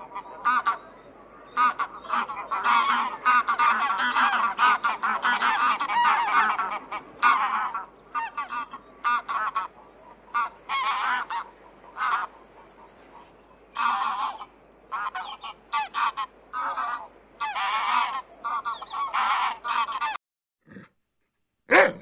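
Greylag geese honking repeatedly. Many calls overlap at first, then come as shorter, spaced calls, and they stop about two seconds before the end.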